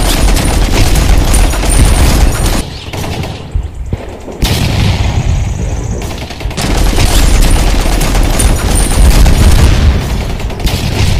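Loud rapid machine-gun fire sound effect with booms, in long continuous bursts broken by a short lull about three seconds in.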